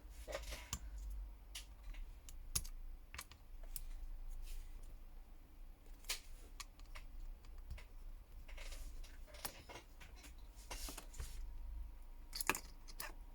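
Scattered light clicks, taps and short scrapes of small tools and phone parts being handled as a Samsung Galaxy S10+ motherboard is pried up and lifted out of its frame, with a sharper click about two and a half seconds in and a couple more near the end.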